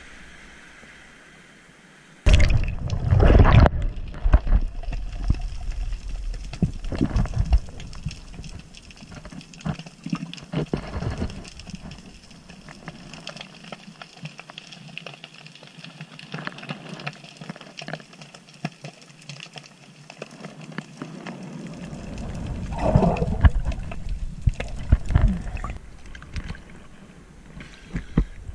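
Sea water splashing and gurgling around an action camera as it goes into the water and back out, with a sudden loud splash about two seconds in and another loud spell near the end. Between them is a quieter, muffled underwater stretch.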